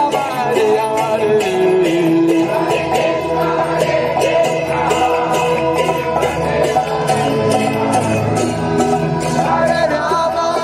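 Devotional kirtan music: a group singing with a two-headed hand drum and small hand cymbals keeping an even beat of about three strokes a second.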